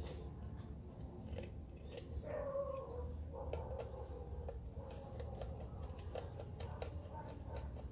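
Light clicks and scrapes of a small screwdriver turning the screw of a plastic wire terminal on a Kono KN-SA17 ceiling motion sensor, while a wire is pushed in and the sensor housing is handled. A faint wavering tone sounds in the background from about two seconds in, over a low steady hum.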